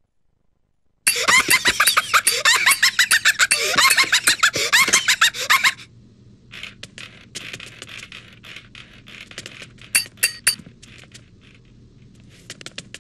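Rapid, high-pitched squeaky gibberish chatter for about five seconds, typical of the Zoozoo characters' cartoon voices. It is followed by quieter irregular clicks and taps, with a few sharper knocks about ten seconds in.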